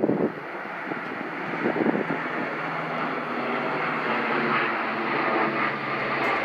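Military airplane's engines droning steadily as it flies on a landing approach, growing a little louder over the first couple of seconds. A gust of wind buffets the microphone right at the start.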